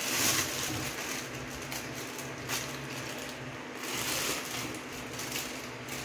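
Thin plastic bag crinkling and rustling in short bursts as raw chicken feet and giblets are shaken out of it into a glass bowl, loudest at the start. A steady low hum runs underneath.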